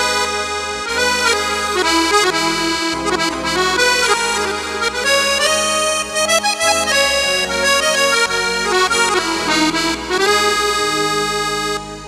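Accordion tone on a Roland XPS-30 keyboard, playing a melody over held chords, with a reedy accordion timbre. The notes die away just before the end.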